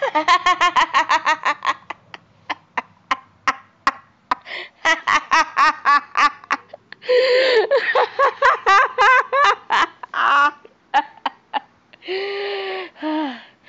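A person laughing hard in several fits of quick, pulsing laughs with short gaps between them, ending in two longer, drawn-out laughs.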